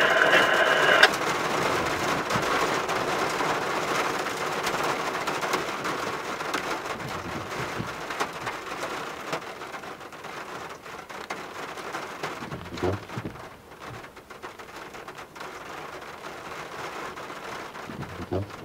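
Heavy rain drumming on a truck's roof and windshield, heard from inside the cab, slowly getting quieter. Near the end a windshield wiper sweeps across the glass.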